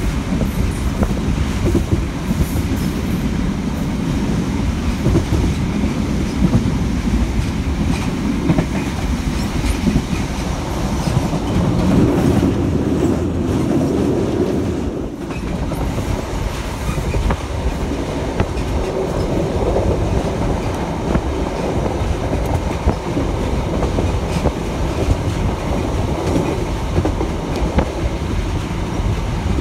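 Inside a ScotRail HST's Mark 3 coach running at speed: a steady rumble of wheels on the rails, with scattered light clicks from the track. The level dips briefly about fifteen seconds in.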